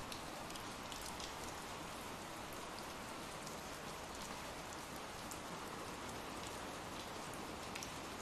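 Steady rain falling: an even hiss with scattered drops ticking on a surface.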